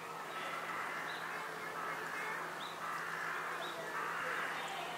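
Outdoor background: a low murmur of distant voices, with short high chirps repeating every half second to a second.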